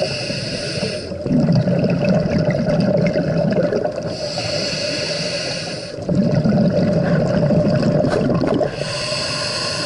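A scuba diver breathing through a regulator underwater. A hissing inhale through the demand valve is followed by a longer gush of exhaled bubbles, in a cycle about every four and a half seconds. Inhales come near the start, in the middle and near the end.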